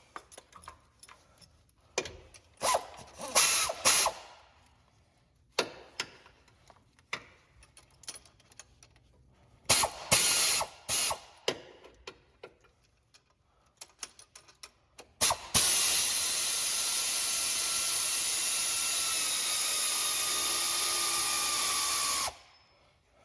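Ratchet wrench clicking in short bursts while the accessory-belt tensioning bolt is turned, then a power tool running steadily for about seven seconds with a slightly sagging pitch, cutting off suddenly.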